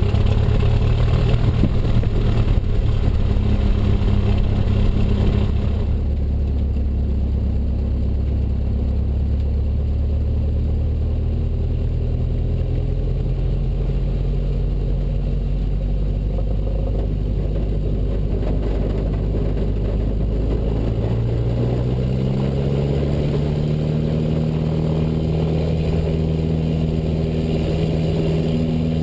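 Cessna 172 Skyhawk piston engine and propeller running steadily, then rising in pitch about 21 s in as the power comes up, and holding at the higher speed.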